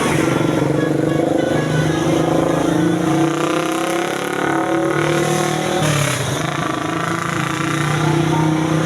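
Bus engine running and accelerating, its pitch rising over a few seconds, then dropping briefly about six seconds in before it carries on.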